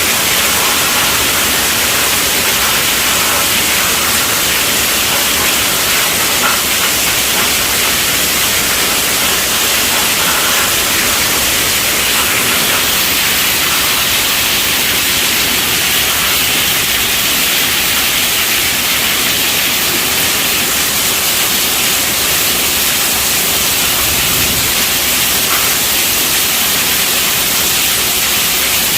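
Steady rainfall: an even, bright hiss that holds at one level.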